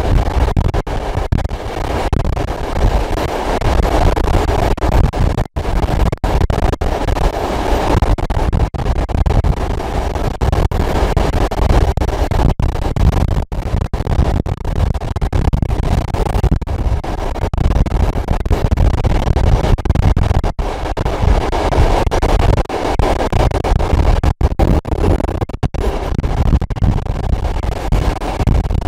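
A diesel-hauled passenger train running along the line, heard from on board: a loud continuous low rumble of the moving train. The sound cuts out for an instant many times.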